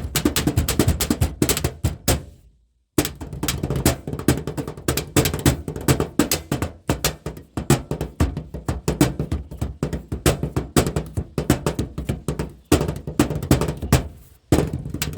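Improvised drumming on objects: a fast, busy run of hard taps and knocks, with a short gap about two seconds in after which it starts again abruptly.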